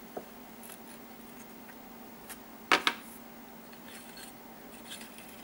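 Steel parts of a Weihrauch HW85/HW95 air rifle's action being handled: a few light metallic taps and clicks, with a sharp double click of metal on metal a little under three seconds in.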